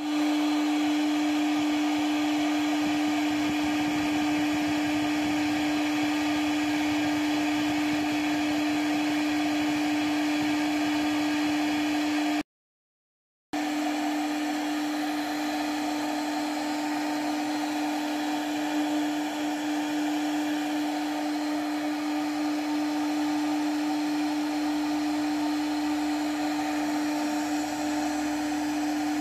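CNC router spindle running steadily with a constant whine while a V-bit engraves an HDF/MDF board, the cutting noise beneath it. The sound cuts out for about a second near the middle, then carries on the same.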